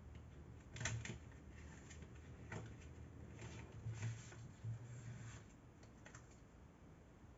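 Plastic CD jewel case and its paper booklet being handled as the booklet is slid out from under the cover tabs: soft scattered clicks and paper rustles, the sharpest click about a second in.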